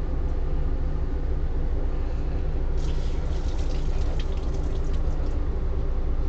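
Steady low machine hum, with a patter of water splashing and dripping into a grooming tub for about two and a half seconds in the middle as a wet towel is wrung out.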